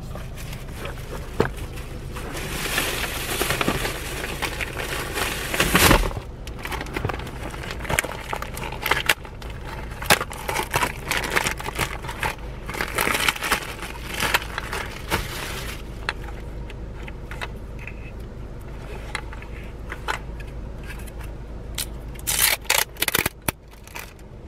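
Crinkling and scraping of packaging being handled, in several bursts, with a run of sharp clicks near the end, over a steady low hum.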